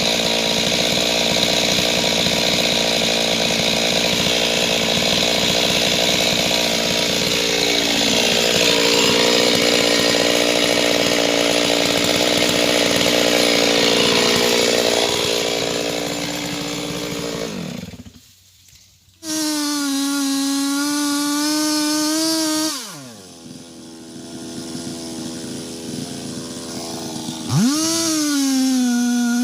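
Two-stroke chainsaw cutting into wood, its engine pitch sagging twice as the chain bogs in the cut. Then, after a brief break, it revs high and clean off the cut, drops back toward idle and is blipped up to full revs again near the end.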